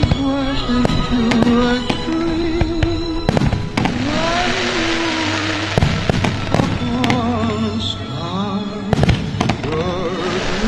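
Aerial firework shells bursting in repeated booms, with a spell of crackling about four to six seconds in, over music with slow wavering held notes.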